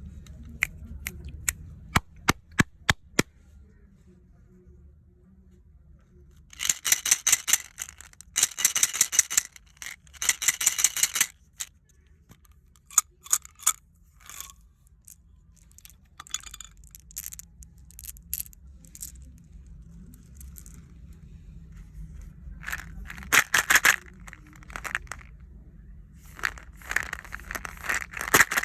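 Candy packaging being handled and opened: a quick run of sharp clicks, then repeated bursts of crinkling and tearing plastic wrapper with scattered clicks between.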